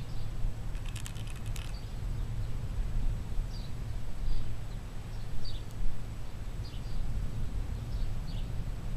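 Small birds chirping now and then over a steady low rumble, with a brief burst of rapid clicking about a second in.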